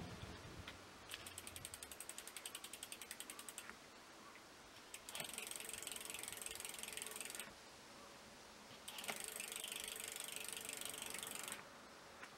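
Bicycle rear-hub freehub pawls ratcheting as the rear wheel turns. First come separate clicks about eight a second, then two fast buzzing runs of about two seconds each, each cutting off suddenly.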